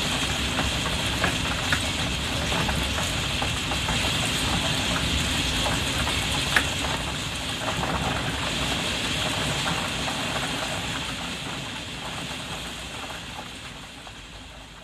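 Rain drumming on a roof skylight heard from indoors: a dense steady patter with scattered sharper drop taps, fading out over the last few seconds.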